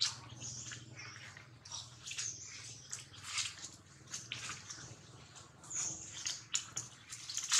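Baby long-tailed macaque crying in a rapid string of short, high-pitched squeals as an adult macaque grabs it by the tail and handles it roughly.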